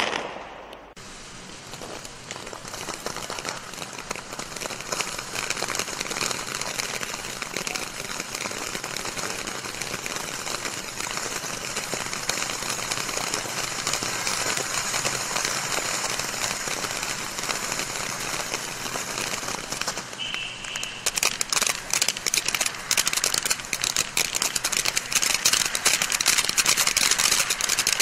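Aladdin's Cave ground fountain firework spraying sparks with a steady hiss and fine crackle. About 21 seconds in, it turns to dense, sharper crackling.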